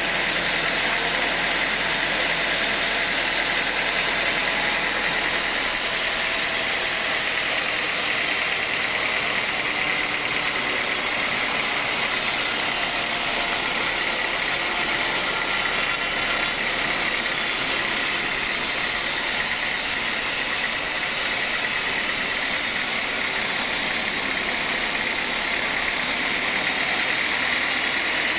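Sawmill engine and saw running steadily, an even mechanical noise with a constant high hum.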